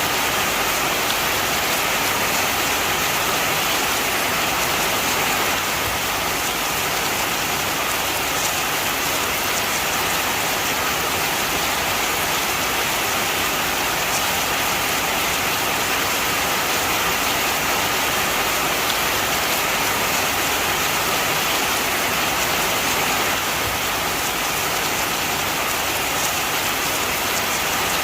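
Heavy rain falling steadily, a dense even hiss of drops hitting surfaces with no let-up.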